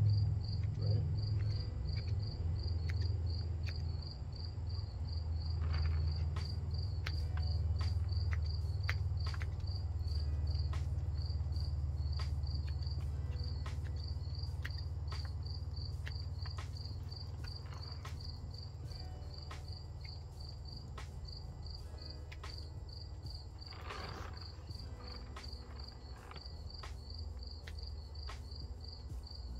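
A cricket chirps steadily in evenly spaced chirps, while pruning shears give short sharp snips on juniper branches, over a low steady rumble.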